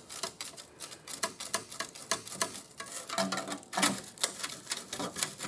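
Metal tools working on rusted sheet-metal panels to part them, in a quick irregular run of sharp clicks and taps, with louder knocks a little over three seconds in; the panels are still firmly attached.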